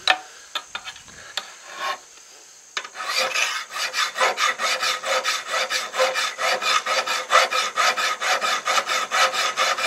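Hand file stroking across the steel edge of a tomahawk head forged from an old horseshoe rasp, clamped in a vise: quick, even rasping strokes, about three a second, starting about three seconds in, as the blade is brought to its edge before heat treating. Before the filing, a few light clicks.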